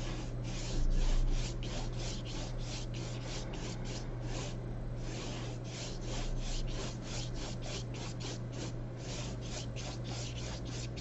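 Paintbrush loaded with thick gouache scrubbing back and forth across paper in quick rasping strokes, about three a second, with a short break near the middle. A low bump comes about a second in.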